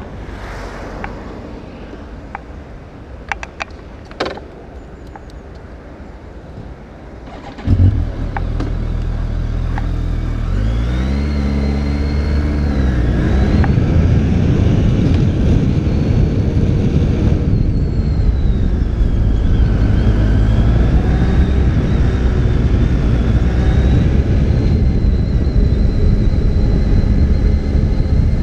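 A few clicks and knocks, then about eight seconds in a BMW K1300R's inline four-cylinder engine starts suddenly. Its revs rise and fall briefly a few seconds later, then it runs steadily.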